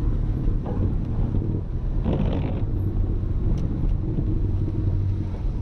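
Audi A3 1.8T's turbocharged 20-valve four-cylinder engine running at low revs in first gear as the car rolls slowly downhill, a steady low drone, with a brief rattle-like noise about two seconds in.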